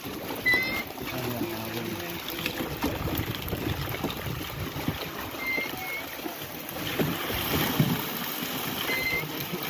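Sea water sloshing and splashing around a small fishing boat as fish are scooped out of the net with a long-handled dip net, with a few knocks of handling near the end.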